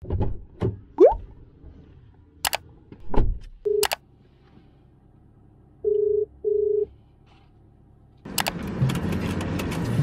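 A phone call ringing out on speaker: double ring-back tones, the pair about two seconds after a single earlier tone, while the phone waits for an answer. Before them come a few knocks and thuds of someone climbing into a car, and louder sound comes in near the end.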